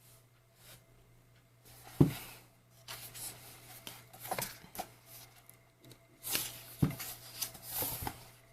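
Paper rustling and pages being turned in a large album photobook, with two soft knocks, about two seconds in and near the end, as the book is handled.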